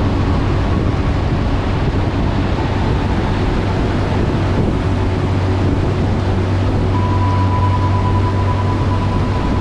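Steady noise of a vehicle driving through a road tunnel: engine and road noise with a strong deep hum, and a faint steady high whine in the last few seconds.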